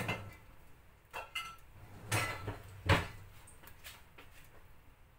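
A few knocks and clinks of kitchenware being handled: short impacts, some with a brief ring, the loudest a thud about three seconds in.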